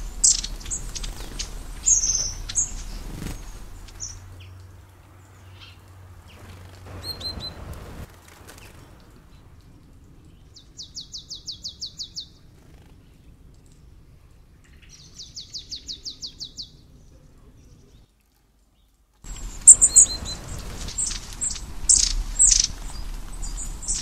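Small songbirds chirping, with high, sharp calls at the start and again near the end, and twice in the middle a rapid, evenly spaced trill of about a dozen notes. The sound drops out completely for about a second before the chirping returns louder.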